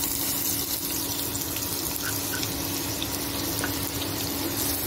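Chopped onions hitting hot oil in a kadhai and sizzling as they start to fry. The sizzle starts suddenly as they go in and then holds steady.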